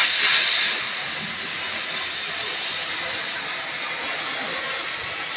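Oxy-fuel cutting torch hissing steadily as it cuts across a steel truck leaf-spring plate. The hiss is louder and sharper for about the first second, then settles to a softer, even hiss.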